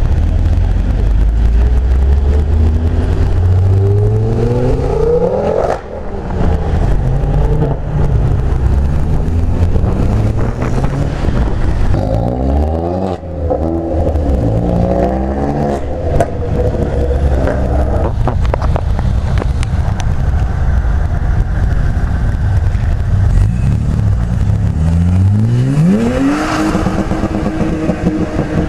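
Several modified cars accelerating away one after another, each engine revving up in a rising note as it pulls off. The clearest rises come near the start, about halfway through and near the end.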